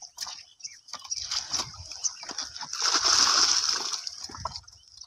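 Donkey cart's wheel and the donkey's hooves splashing through muddy puddle water: scattered splats, then a louder splashing rush about three seconds in that fades near the end.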